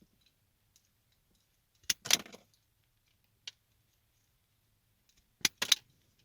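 Wire cutters snipping small wires: a couple of sharp clicks about two seconds in, and a quick cluster of clicks near the end.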